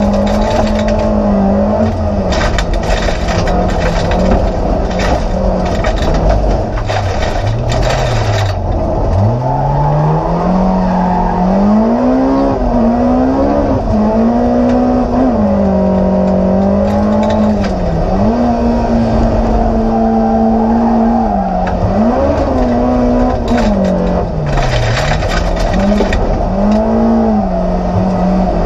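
Rallycross car's engine heard from inside the cockpit, its pitch rising and falling repeatedly as the driver accelerates, lifts and shifts through the corners. Gravel rattles and hisses against the underbody and bodywork a couple of seconds in and again near the end.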